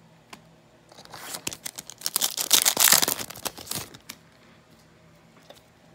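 Trading cards being handled: a scraping, rustling burst with small clicks that starts about a second in, is loudest in the middle and dies away about four seconds in.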